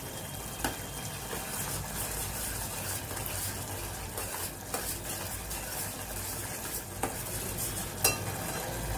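Green chillies in yogurt and oil sizzling in a metal pot while a metal spoon stirs and scrapes through them, with a few sharp knocks of the spoon against the pot. The yogurt is cooking down and the oil is starting to separate.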